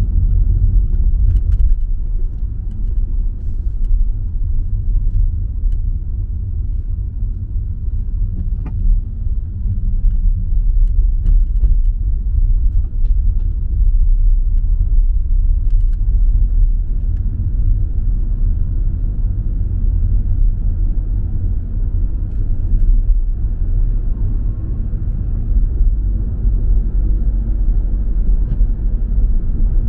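Car being driven: a steady low rumble of engine and road noise.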